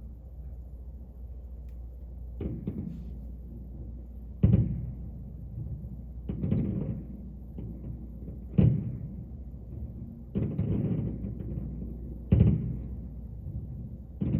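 Fireworks shells bursting in a series of booms, about one every two seconds, each with a short rumbling tail, over a steady low hum.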